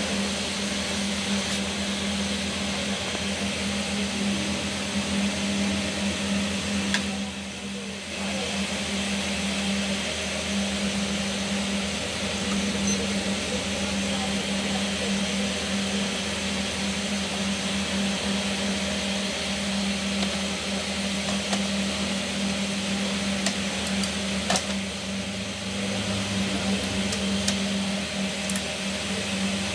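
A steady machine hum with hiss throughout, with a few light clicks, one about seven seconds in and a couple more about three quarters of the way through.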